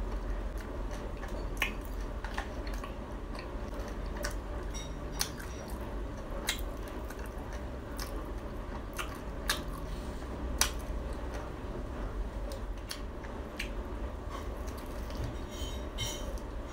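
A person chewing fried Khmer crispy cakes close to the microphone: irregular sharp crunchy clicks over a steady low hum.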